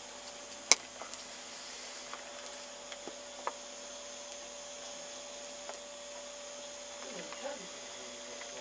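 Steady low hum and hiss in a small room, broken by one sharp click a little under a second in and a few soft ticks and taps afterwards.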